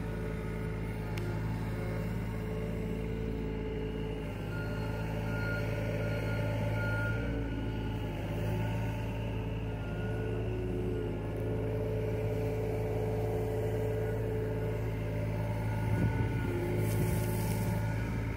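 John Deere mini excavator's diesel engine running steadily while the arm and bucket are worked over a trench, with a brief louder burst of noise near the end.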